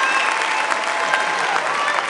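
Audience applauding: steady, dense clapping.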